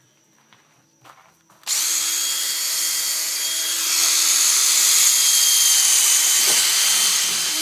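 Makita cordless drill boring into a coconut shell: the motor starts about two seconds in and runs steadily under load, a little louder from about halfway.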